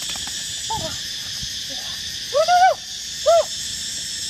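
A few short rising-and-falling animal cries, the longest about two and a half seconds in, over a steady high-pitched insect drone.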